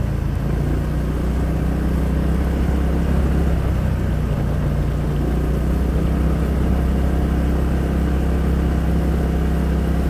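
Honda PCX scooter's single-cylinder engine running steadily as it rides along, a constant low hum with road noise and no change in revs.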